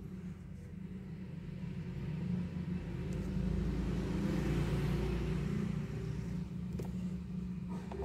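Low, steady vehicle rumble that swells up in the middle and eases off again, with a few light clicks near the end.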